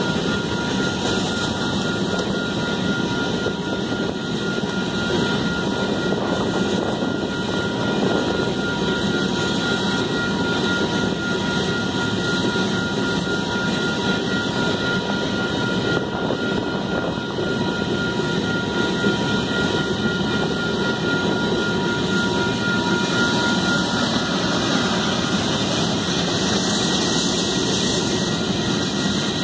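Long freight train of covered hopper cars rolling past, a steady rumble and clatter of wheels on the rails. A thin steady high tone runs over it and fades out a few seconds before the end.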